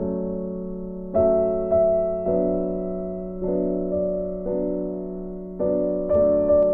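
Slow background piano music: chords struck one after another, each left to ring and fade before the next.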